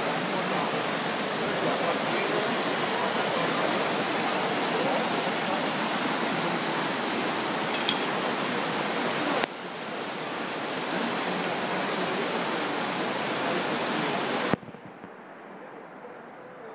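Floodwater from the overflowing Fereggiano torrent rushing down a city street: a steady, dense roar of fast water. It steps down slightly about halfway through, then abruptly turns much quieter and duller near the end.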